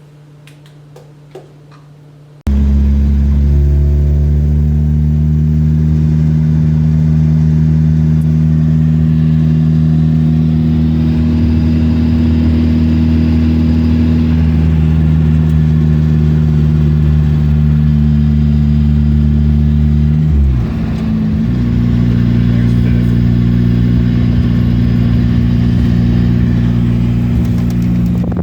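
Mazda Miata's freshly rebuilt four-cylinder engine running at a steady speed, coming in abruptly a couple of seconds in. About twenty seconds in, its note dips briefly, then settles into a slightly different steady tone.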